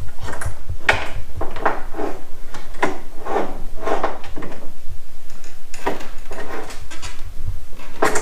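Tools being handled on a wooden workbench: a run of irregular knocks, clacks and rattles as an air impact wrench, its socket and a bench-mounted clamp are worked by hand.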